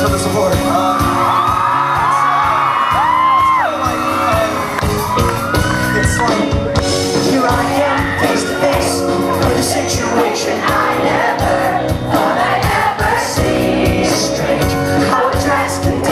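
A man singing a show tune into a microphone over live musical accompaniment. In the first few seconds, high-pitched screams and whoops from the audience ride over the music.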